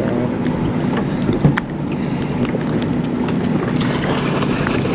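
Boat motor running steadily, with wind noise on the microphone. A single sharp knock about a second and a half in.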